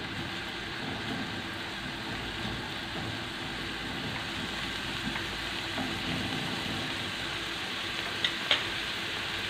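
Onion sizzling in hot oil in a frying pan as it is stirred with a silicone spatula, a steady frying hiss. Two short sharp clicks near the end.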